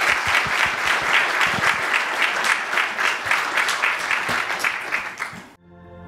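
Audience applauding steadily. The applause cuts off abruptly about five and a half seconds in, where soft music begins.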